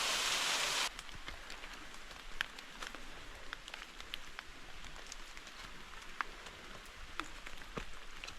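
Waterfall rushing for about the first second, then an abrupt cut to a quieter background of scattered water drops pattering with irregular sharp ticks.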